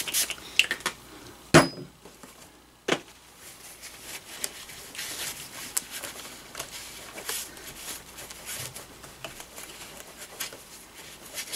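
Light scrubbing and scratching on the plastic chassis of an HSP RC monster truck as dirt is cleaned off with alcohol, broken by two sharp knocks about a second and a half and three seconds in.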